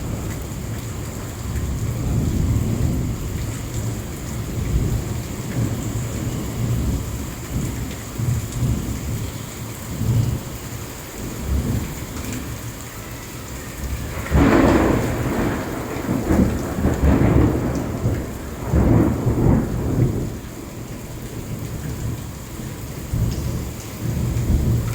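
Heavy rain pouring, with a continuous low rumble under it. Two louder surges rise up out of it about fourteen and nineteen seconds in.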